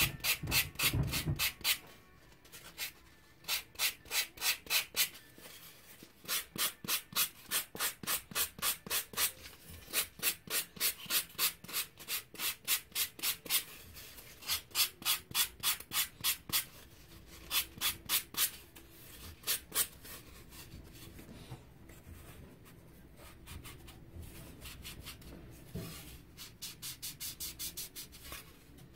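Folded sandpaper rubbed by hand back and forth over a ball-jointed doll's pink leg core. It comes in quick runs of scratchy strokes, about three or four a second, with short pauses between runs. The strokes grow fainter and sparser in the last third.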